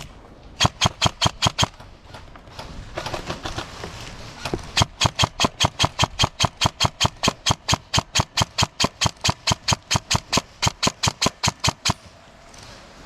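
Airsoft gun firing rapid, evenly spaced shots, about five or six a second: a short string of about six shots, then after a pause a long string of about forty shots that stops near the end.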